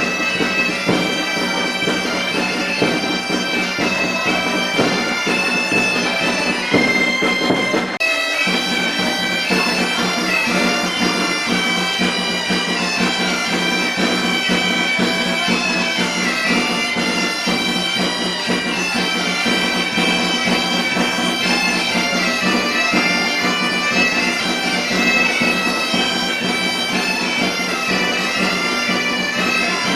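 Galician bagpipe (gaita) playing a melody over its steady drone, which breaks off for a moment about eight seconds in.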